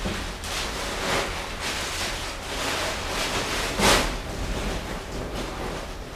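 Rustling and crinkling of a disposable PPE coverall and plastic shoe covers as the coverall is rolled inside out and pulled off the legs. The swishes come in irregular bursts, with the loudest crinkle about four seconds in.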